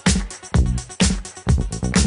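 Background dance music with a steady beat, about two beats a second, over a bass line.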